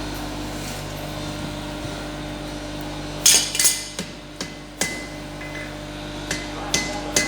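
Hammer blows on hot mild steel bars over an anvil, forge welding a scarf joint at welding heat: after a steady hum, a series of sharp strikes starts about three seconds in, the first two the loudest, some with a short metallic ring.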